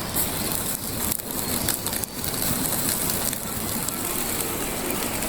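Wood cooking fire crackling with scattered faint clicks over a steady hiss.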